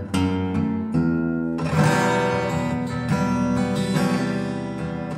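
Background music on acoustic guitar, strummed and picked, with a fuller strummed chord about two seconds in.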